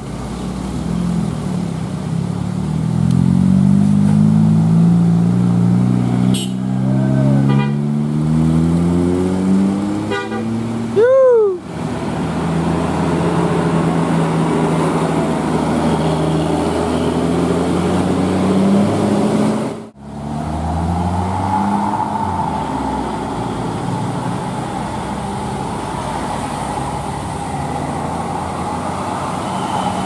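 Big coach buses' diesel engines pulling round tight bends, their pitch climbing and dropping as they change gear. Two short horn toots swoop up and down in pitch, the second and louder one about 11 seconds in.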